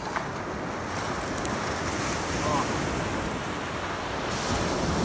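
Steady surf breaking on a beach, with wind buffeting the microphone.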